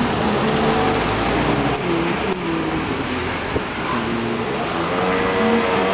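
Street traffic: car engines running and passing, a loud steady din with engine notes that shift in pitch.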